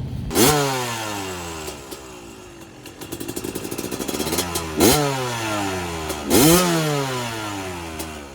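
Two-stroke 2000 KTM 250 dirt bike engine revved in three sharp throttle blips, each rising quickly in pitch and then falling back toward a burbling idle.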